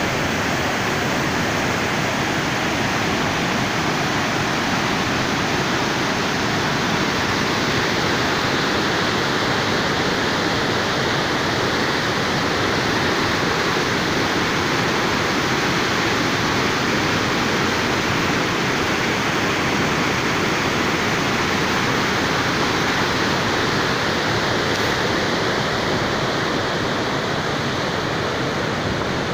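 Muddy floodwater of a swollen river rushing over and through a concrete intake weir: a loud, steady rush of churning water.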